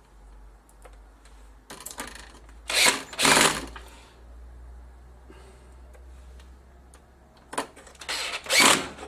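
Electric screwdriver running in several short bursts, driving in the screws that hold the power-supply board, in two clusters: a few seconds in and again near the end.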